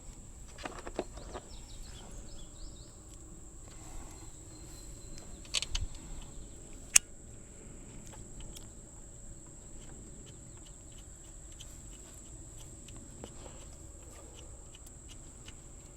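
Quiet outdoor background with a steady high insect drone, like crickets, and a few small clicks and taps; one sharp click about seven seconds in.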